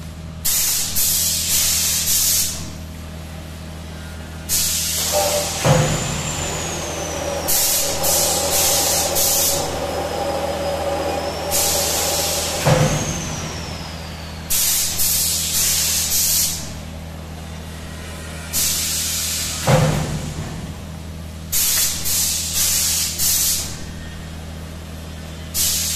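Pneumatic 104-cavity nursery tray forming machine cycling: repeated short blasts of compressed-air hiss from its cylinders, and a sharp knock about every seven seconds as a stroke completes, three times, over a steady electrical hum.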